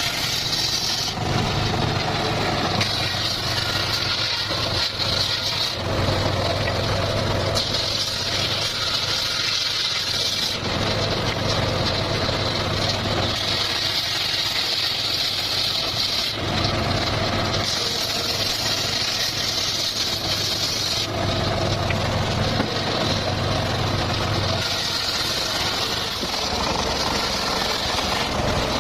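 Circular saw running steadily, with a higher whine and heavier hum joining in for stretches of a few seconds, about six times, as the blade cuts.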